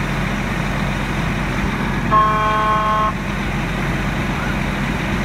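A vehicle horn sounds once for about a second, about two seconds in, over the steady low drone of a fire engine's engine running.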